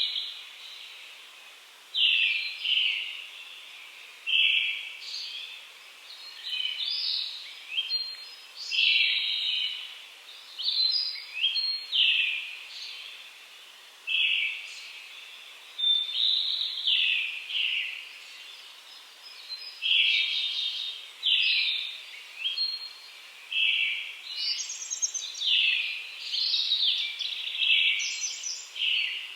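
Wild songbirds singing in a mountain forest: short ringing phrases, repeated every second or two, with several birds overlapping.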